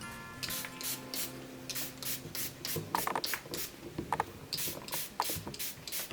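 Repeated short scraping or rustling strokes, about two to three a second, over a faint steady musical tone.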